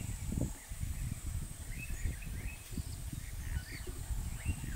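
Birds calling in the bush with short repeated chirps, over a steady high-pitched insect whine and a low rumble of background noise.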